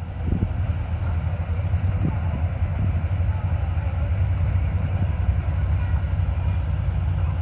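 Combine harvester's engine running steadily, a dense low rumble, with a couple of short knocks in the first two seconds.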